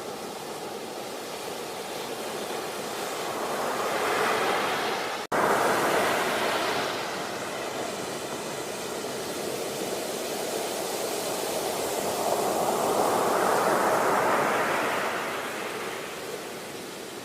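Sea waves surging and breaking on the shore, the wash swelling twice. The sound cuts out for an instant about five seconds in.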